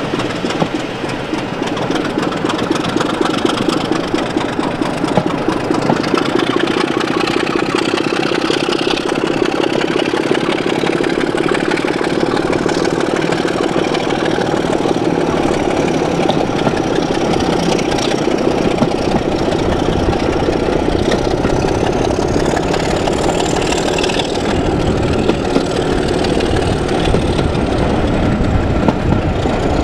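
Class 26 diesel locomotive's Sulzer six-cylinder engine running under power at the head of the train, heard from an open carriage window along with steady wheel and rail noise. A faint high whistle rises slowly in pitch in the second half and falls away slightly near the end.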